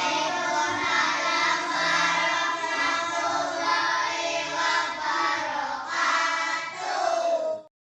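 A class of children chanting together in unison, loud and sustained, cutting off abruptly just before the end.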